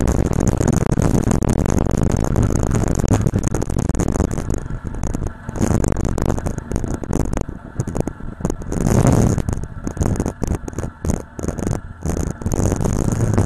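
Motorcycle riding along the road, its engine and the wind over the camera microphone making a loud, steady rush. After about four seconds the noise turns choppy and uneven, with a short swell just after nine seconds in, as the bike slows toward a roadblock.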